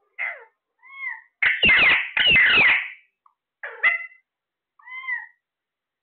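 Caged Alexandrine parakeets calling: short arched squawks, then two long loud rough screeches in quick succession about one and a half seconds in, followed by a few more short calls.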